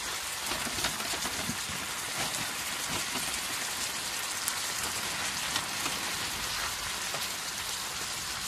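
Hamburger patties and crumbled ground meat sizzling in a frying pan: a steady hiss with small crackles and pops throughout.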